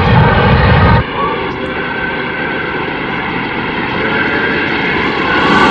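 A steady engine drone with a rushing noise and faint steady tones, growing a little louder near the end. A heavier low rumble cuts off about a second in.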